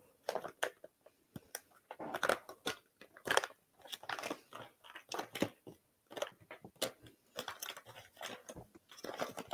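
Crinkling and rustling of a small packaging pouch as diamond-painting tools are packed back into it, with irregular light clicks from the small plastic pieces.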